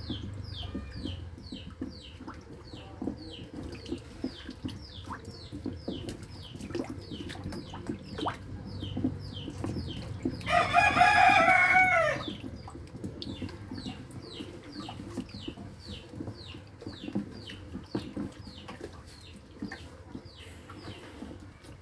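Turtles splashing and paddling in shallow water, over a steady run of short, high, falling chirps about two to three a second. Near the middle a rooster crows once, loud, for about a second and a half.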